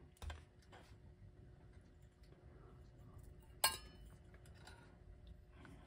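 One sharp clink with a brief ring a little past halfway, as a small hard object is set down on the work table, after a faint knock near the start. Otherwise quiet room tone.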